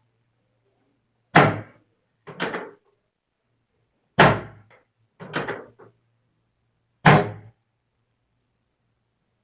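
Three heavy thumps on a chiropractic treatment table about three seconds apart, each dying away quickly, with lighter knocking about a second after the first two. They fit the thrusts of a chiropractic adjustment.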